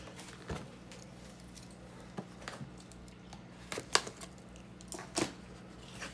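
Cardboard product box being opened and its packaging handled: scattered clicks, taps and rustles, the sharpest about four seconds in, over a faint steady low hum.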